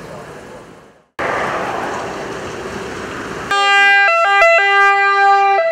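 Steady outdoor noise, broken by a cut about a second in, then an emergency vehicle's two-tone siren starts suddenly about three and a half seconds in, switching between two pitches.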